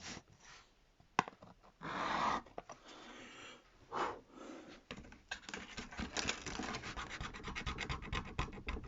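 Scratching and rubbing as the layers of a tablet's screen are pried and peeled apart: a sharp click about a second in, two brief swishes, then from about halfway a fast run of small scratchy crackles.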